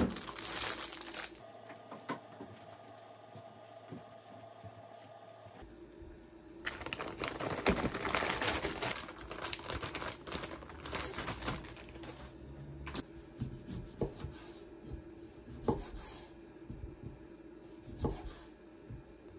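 Plastic packaging of a bunch of enoki mushrooms crinkling and rustling as it is handled and pulled open, loudest at the start and again through the middle. Near the end come a few separate knocks of a kitchen knife on a wooden cutting board as a tomato is sliced.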